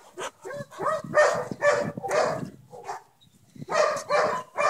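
A dog barking in a run of short barks, with a brief pause about three seconds in.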